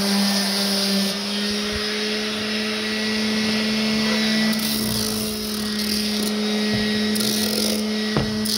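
Ryobi random orbit sander running with a steady, unchanging hum, first sanding the face of a carved wooden sign, then lifted off the wood and running free while the sign is turned over. A single sharp knock near the end.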